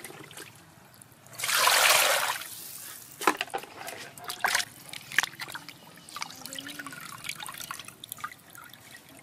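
Water sloshing and dripping as a tilapia is washed in a steel basin, with one loud splash about a second and a half in, then scattered drips and small knocks.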